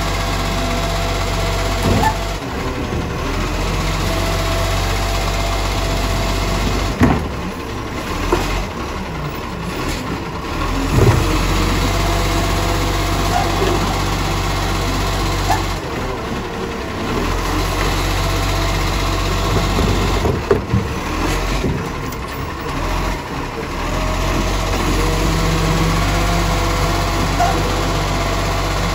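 Side-loader garbage truck's engine running steadily while its hydraulic arm lifts and tips a wheelie bin into the hopper, with a few sharp knocks partway through.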